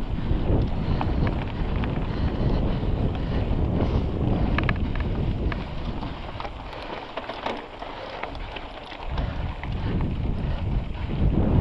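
Wind buffeting the microphone while a mountain bike is ridden on trail, with scattered clicks and rattles from the bike. The wind noise drops for about two seconds past the middle, then rises again near the end.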